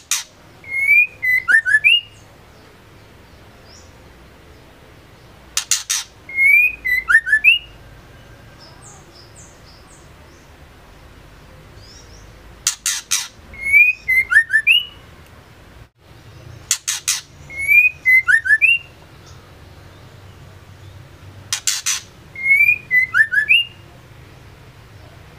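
Female white-rumped shama calling, the same phrase five times about every five seconds: a short harsh rasp, then a quick run of whistled notes that slide in pitch.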